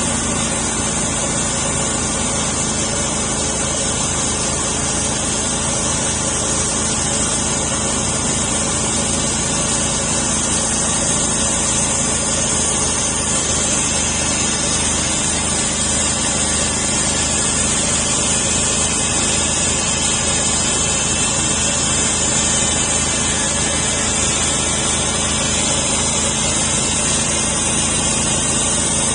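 Homemade sawmill running steadily, its engine at a constant pitch as it saws through a spalted maple log.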